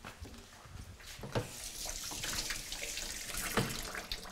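Panko-breaded shrimp deep-frying in oil at about 350 °F: a steady sizzle and bubbling that grows louder about a second in, with a couple of light knocks.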